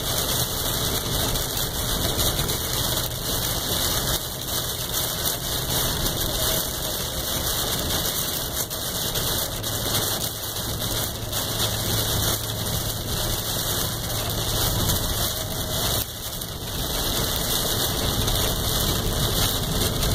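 Heavy rain pattering on a Dodge Ram pickup's windshield and cab, heard from inside, over the steady low hum of the truck's engine and tyres on wet road.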